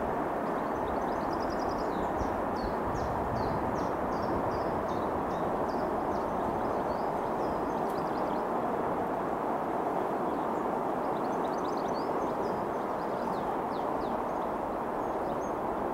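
Small birds chirping and twittering in two spells, in the first few seconds and again about eleven to fourteen seconds in, over a steady, even background noise that does not rise or fall.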